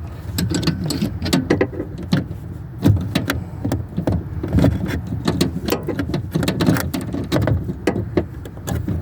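A 10 mm wrench working a tight tail-light mounting nut inside a car's rear body panel: irregular metallic clicks and knocks as the tool turns and shifts on the nut.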